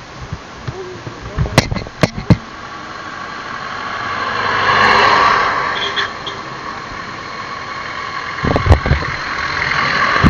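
A motor vehicle passing by, growing to its loudest about halfway through and then fading. There are a few sharp knocks about two seconds in and low thumps near the end.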